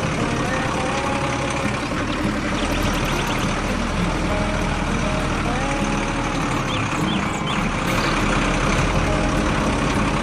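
A vehicle engine running steadily, with a dense continuous rumble and a few short higher chirps over it.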